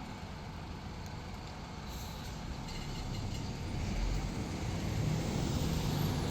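Road traffic noise, a steady rumble that grows louder about halfway through as a vehicle passes close.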